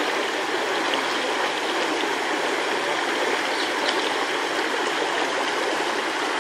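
Shallow river rushing steadily over rocks and rapids: an even, continuous sound of flowing water.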